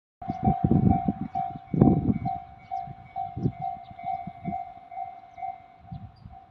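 Japanese level-crossing alarm ringing about twice a second, its two sounders out of step with each other so the strokes fall unevenly. A single-car diesel railcar's wheels thump heavily over the crossing, loudest about two seconds in, then thin out as it moves away.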